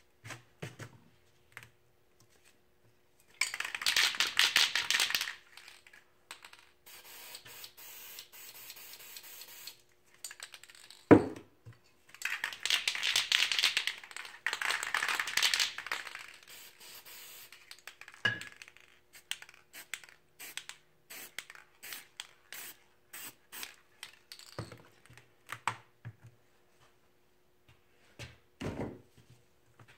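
Aerosol spray paint can spraying in two hissing bursts, about two seconds and about four seconds long, with a weaker spray in between. A single sharp knock between the bursts is the loudest sound, and many light clicks and taps of handling the can and tools are scattered around them.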